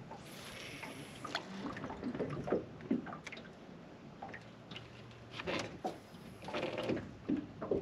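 Water lapping and sloshing against a small boat's hull, with scattered light knocks and clicks from handling gear in the boat.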